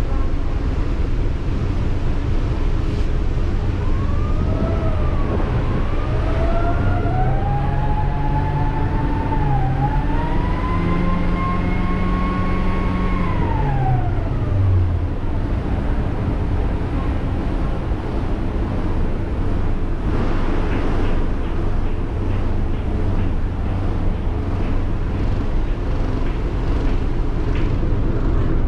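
Ferry's engines running with a steady, loud drone. A siren-like wail rises and falls over it for about ten seconds, starting about four seconds in.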